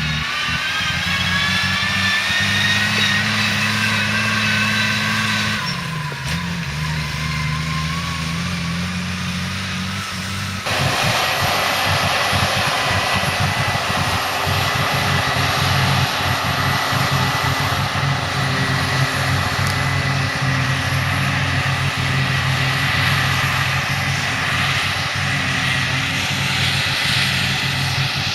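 Heavy silage machinery engines running. A whine rises in pitch for the first few seconds, and about ten seconds in the sound changes abruptly to a steady engine note with a thin high whine over it.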